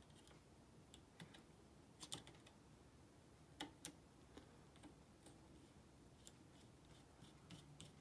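Near silence broken by a few faint metallic clicks, clearest about two seconds in and around the middle, as a screwdriver works the shoulder screw of an Oliver typewriter's type bar rest into place.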